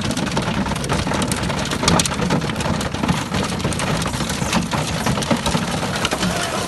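Hail pelting a vehicle's roof and windows, heard from inside the cabin as a dense, steady clatter of sharp ticks, with a low rumble underneath.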